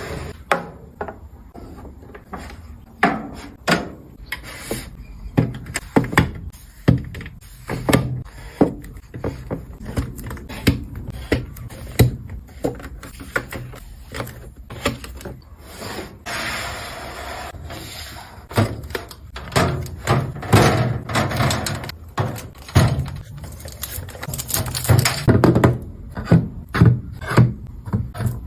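Hand work on wood: irregular sharp knocks and taps, about one or two a second, with two longer stretches of rubbing or rasping, one midway and one near the end.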